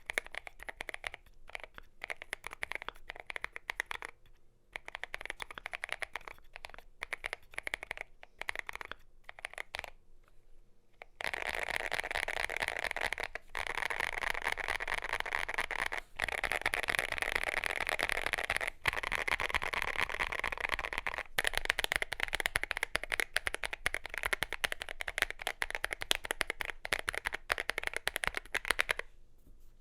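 Mechanical keyboard typing on a Glorious GMMK Pro with lubed Gazzew Boba U4T tactile switches and MT3 keycaps. The keystrokes come separately at an ordinary typing pace at first. About eleven seconds in they turn into a very fast, continuous run of keystrokes that goes on almost to the end.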